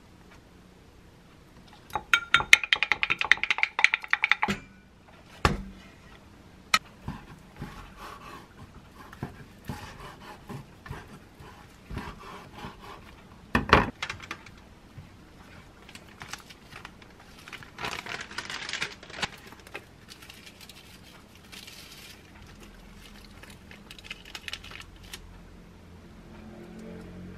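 Sauce stirred briskly in a small glass jar with a wooden stick, a quick run of clinks against the glass lasting a couple of seconds. Then quieter kitchen handling sounds, with two sharp knocks on a wooden cutting board.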